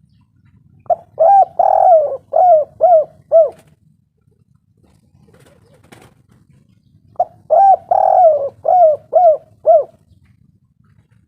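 Spotted dove (tekukur) cooing: two song phrases of about six quick coos each, a few seconds apart.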